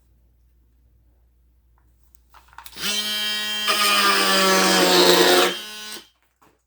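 Ryobi HP brushless oscillating multi-tool running on speed three. It starts just under three seconds in with a steady high buzz, gets rougher and noisier as the blade cuts into wood trim, then winds down after about three seconds.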